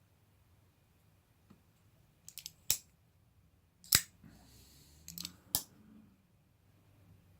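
WE Knife Bishop flipper folding knife being flicked open and shut: light clicks of the flipper tab and detent, then sharp metallic snaps as the blade swings out and locks up, three loud snaps in about three seconds, the middle one the loudest.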